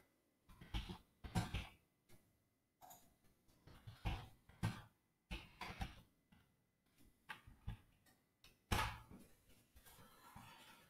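Irregular clicks and taps on a computer keyboard and mouse as a search is typed and selected, coming in short clusters with pauses between.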